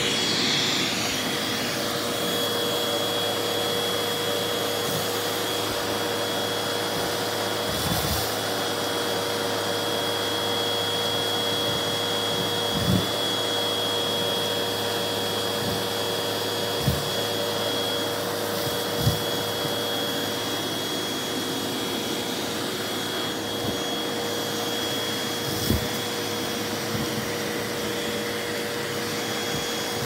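Hoover vacuum cleaner running steadily through its hose nozzle, sucking up clumps of hair from carpet, with a steady whine over the suction noise. A few brief knocks come from the nozzle at the carpet.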